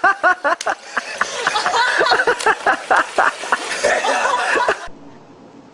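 A person laughing hard in quick, repeated bursts, cut off suddenly about five seconds in, leaving only a faint steady hum.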